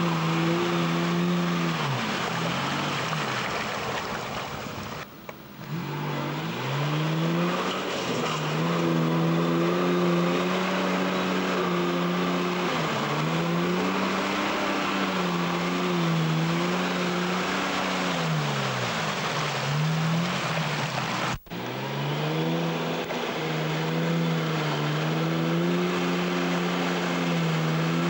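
Unimog truck's engine working hard through deep mud, its note repeatedly sagging under load and picking back up as the revs rise. The sound drops out briefly twice, about five seconds in and again with a sharp cut past the twenty-second mark.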